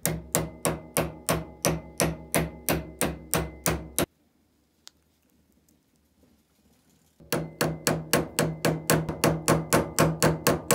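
Hammer tapping a bent metal screwdriver sleeve fitted over a steel rod on a vise anvil, straightening it, with a ringing metallic clink on each blow. There are two runs of even blows: about three a second for four seconds, then after a pause a faster run of about five a second.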